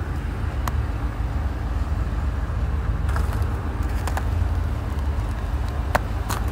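Pickup truck engine idling after a cold remote start: a steady low rumble, with a few faint short clicks over it.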